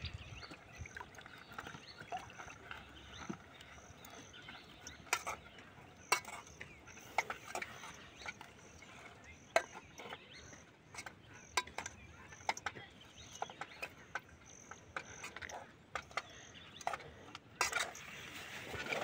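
Shredded cabbage being tossed by hand in a metal cooking pot: irregular clicks, knocks and rustles, with a few louder knocks near the end. A faint high chirp repeats about twice a second in the background.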